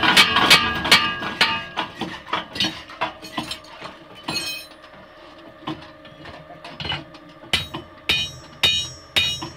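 Homemade mechanical power hammer's ram striking steel in a fast run of blows, about four a second, that slows and fades by about halfway. Near the end it strikes again at about two blows a second, each a loud ringing metallic clang.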